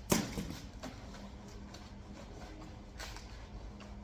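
Styrofoam packing being lifted out of a cardboard box: a sharp knock just after the start, then light rubbing and handling, with another scrape about three seconds in.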